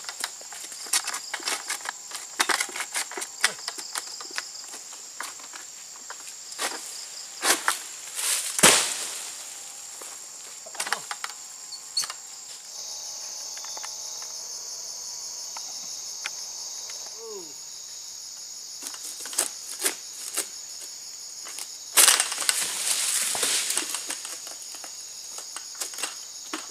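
Long-poled harvesting sickle (egrek) clicking and knocking as it cuts into an oil palm's crown, with a heavy thud about 9 s in and a loud rustling crash about 22 s in from cut fronds or fruit coming down through the leaves. Insects drone steadily and high throughout.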